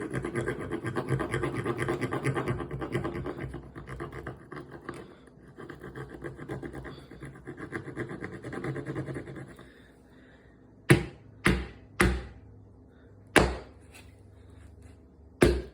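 A fast, rhythmic scraping for about ten seconds, then five sharp knocks spaced unevenly over the last five seconds: a hard peach pit being scraped and then struck in an attempt to break it open.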